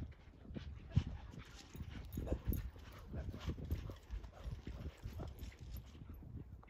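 A horse's hoofbeats, uneven thuds several a second, with a sharper, louder knock about a second in.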